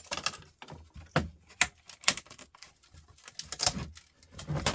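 Irregular clicks and knocks of small plastic and metal laptop parts being handled and worked apart, several a second, with a few louder knocks.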